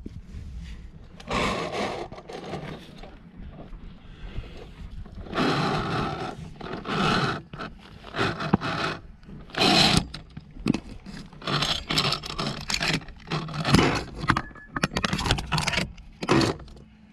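Irregular scraping and rubbing as a via ferrata climber moves on the rock: hands, clothing and climbing gear brushing against the rock and rungs, in uneven bursts with short pauses between.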